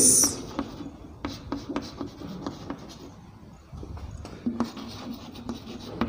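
Chalk scratching and tapping on a chalkboard as words are written by hand, a run of short separate strokes.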